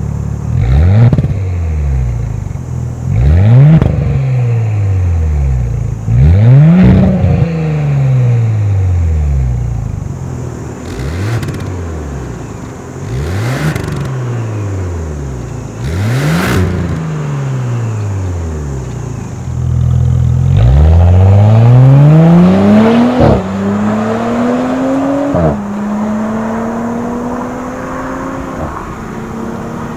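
Audi S5 (B9) 3.0-litre turbocharged V6 through a switchable valved aftermarket exhaust, blipped about seven times while standing, each rev rising and falling, with the valves both open and closed. Later it accelerates hard, with two upshifts, and pulls on under steady throttle.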